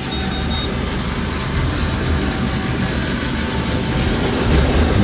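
Steady low engine rumble mixed with wind-like rushing noise, with no break or change in level.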